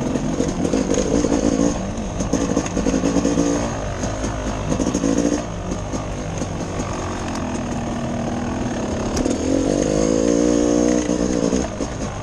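Dirt bike engine heard from on board as it is ridden along a wooded singletrack, the throttle opened and closed repeatedly so the pitch rises and falls, with the strongest pulls about a second in, around three and five seconds in, and a longer one near ten seconds in.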